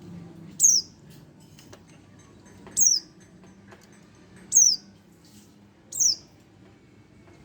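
Young white-eye (pleci), about a month old, giving four short, high calls that fall sharply in pitch, spaced about one and a half to two seconds apart.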